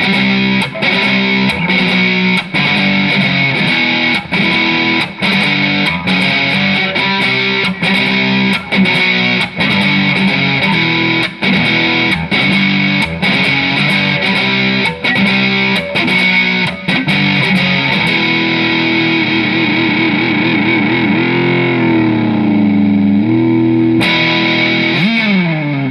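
Distorted electric guitar playing rock chords with short regular stops, then, about eighteen seconds in, a long held note with wide vibrato that bends down, and a sliding fall in pitch near the end.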